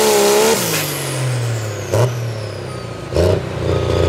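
Dodge Ram diesel pulling truck at full throttle, its engine note wavering up and down. About half a second in the throttle is lifted and the engine falls away to a low idle as the pull ends. It is then blipped in a few short bursts.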